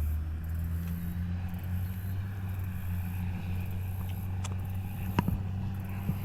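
A steady low motor hum, with a couple of sharp clicks about five seconds in.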